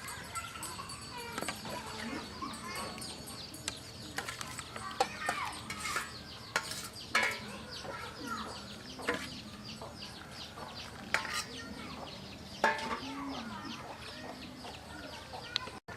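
Chickens clucking and chirping, with a few sharp knocks.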